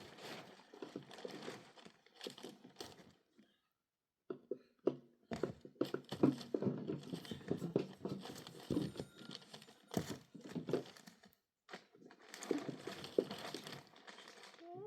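Crinkling, crunching handling noises in a small enclosed space, in stretches broken by short pauses about four seconds in and again near the end.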